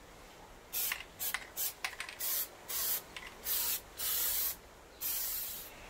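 Aerosol can of Plasti Dip spraying in about nine separate hissing bursts, quick spurts at first, then longer passes of up to about two-thirds of a second.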